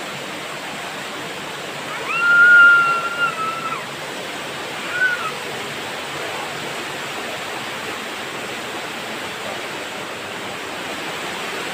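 Waterfall cascade rushing steadily over rocks. About two seconds in, a loud, high, whistle-like call holds one pitch for nearly two seconds, and a short rising-and-falling one follows about a second later.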